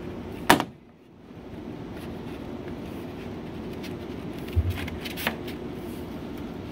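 Handling noise from fitting a display pole together: a sharp click about half a second in, then a soft knock and a faint click later on as the white tube and its wooden tapered end piece are pushed and twisted together. A steady low room hum runs underneath.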